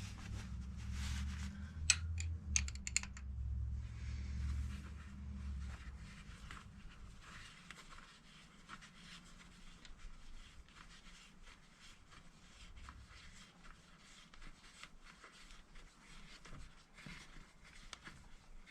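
Faint clicking and scraping of metal hand tools as a valve spring compressor is worked on the engine's cylinder head, with a tighter cluster of clicks a couple of seconds in. A low hum runs under the first six seconds, then stops.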